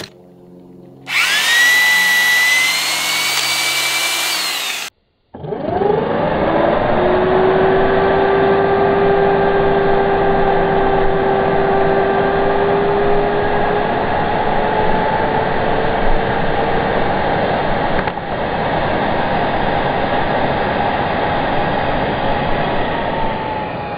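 Champion XLT tapping drill running: its motor spins up and runs for a few seconds, stops briefly, then runs steadily for most of the rest as it drives a split-point tap into a drilled hole in a steel post, its whine dropping in pitch near the end.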